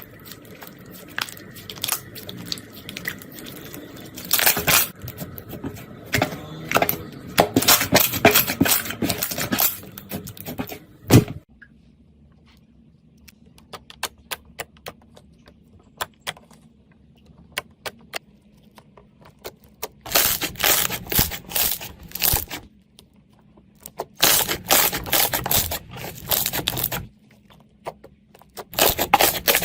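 Slime being squeezed, poked and stretched by hand, making dense runs of crackling, popping clicks. The clicks stop abruptly about a third of the way in, give way to a quieter stretch of only scattered pops, and start again in several short bursts.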